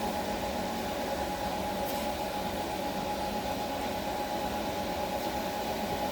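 AC TIG welding arc on aluminium, a steady buzzing hiss with one steady tone held through it.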